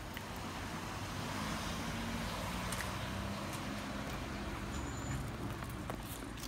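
A car driving slowly past on the street: engine hum and tyre noise that swell over the first couple of seconds, hold, and ease off near the end.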